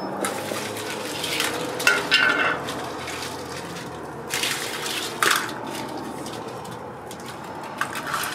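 A large tangle of old car wiring harness being gathered up off the pavement by hand: wires rustling and connectors and terminals clinking in irregular bursts.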